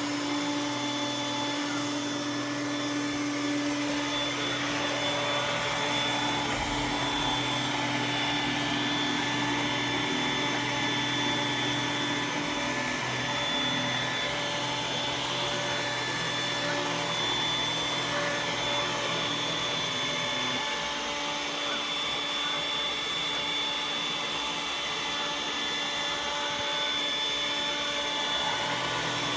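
iRobot Roomba s9 robot vacuum running: a steady motor whine over a rushing suction noise, with a lower hum that drops out about two-thirds of the way through and comes back near the end.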